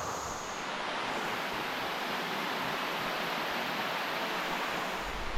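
Steady, even rush of falling water from a small waterfall.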